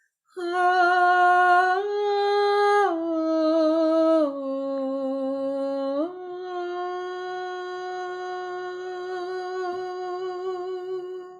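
A woman's voice sounding long, slow held tones in a series of five. The tone steps up, then down twice, then returns to the starting pitch for a final tone held about five seconds. These are peace tones sounded as a meditative vocal offering.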